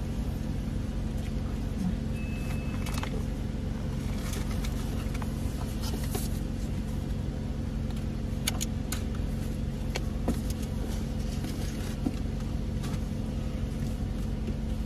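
Car engine idling, heard from inside the cabin as a steady low hum, with a few faint clicks and rustles.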